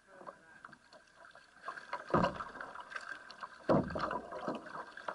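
Kayak paddle strokes in the water: a double-bladed paddle dipping and pulling, with two loud splashing strokes about a second and a half apart.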